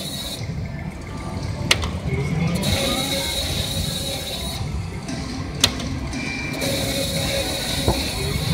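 Three-reel slot machine being played spin after spin: a sharp click about every four seconds as each spin starts and the reels turn, over machine tones and music.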